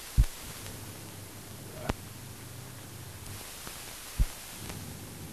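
Steady hum and hiss of an old film soundtrack's background noise. Two loud low thumps, one near the start and one about four seconds in, and a sharp click at about two seconds.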